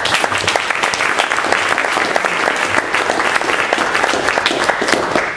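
Audience applauding: many hands clapping steadily, dying away at the end.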